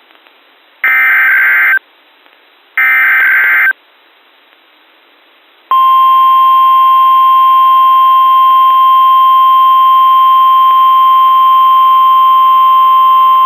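NOAA Weather Radio Specific Area Message Encoder (SAME) alert header: the last two of three short, screechy digital data bursts, a second apart. About two seconds later the steady 1050 Hz warning alarm tone begins and holds; the tone sets off weather-alert receivers ahead of the spoken message.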